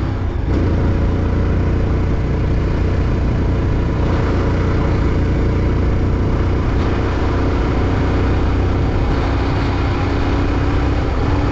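Vehicle engine running at a steady speed, with continuous road and wind noise.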